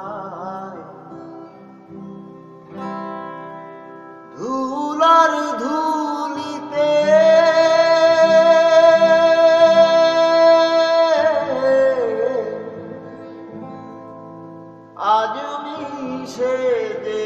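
A Bangla song: a man singing to acoustic guitar. About a third of the way in he holds one long drawn-out note, the music drops back, and near the end the next sung line comes in.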